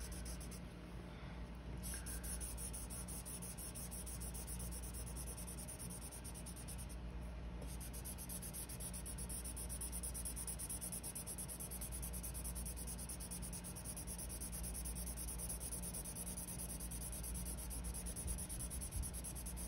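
Felt-tip marker scratching across paper in steady back-and-forth colouring strokes as a shape is filled in.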